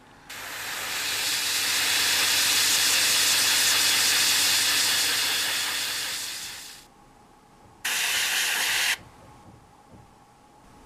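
Airbrush spraying paint: a long hiss that swells and then fades over about six and a half seconds, followed by a shorter, abruptly started and stopped burst of about a second.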